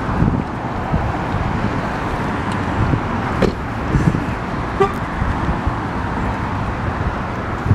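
Steady outdoor rumble of road traffic with wind on the microphone, and a very short beep about five seconds in.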